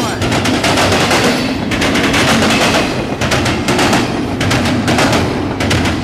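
Norfolk Southern intermodal freight train passing close by: a loud, rapid clatter of steel wheels on the track in uneven groups over a steady low rumble of the rolling cars.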